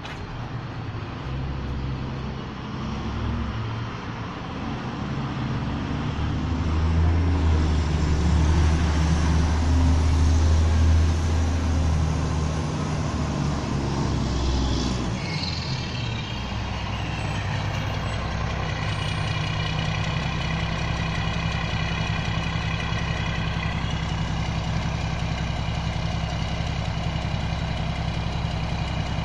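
Garbage truck's diesel engine, getting louder to its loudest about a third of the way in, then settling into a steady idle with a high whine over it from about halfway on.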